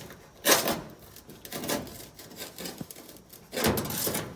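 Caravan's aluminium wall panel rubbing and scraping as it is pushed out of its slot. The sound comes in bursts: a sharp one about half a second in and a longer, louder scrape near the end.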